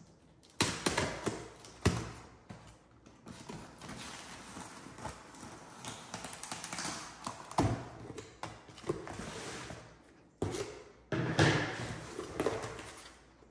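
Scissors cutting through packing tape on a cardboard shipping box, with the tape tearing and the cardboard scraping and rustling. Near the end the box flaps are pulled open. There are several sharp, loud bursts among the steadier rustling.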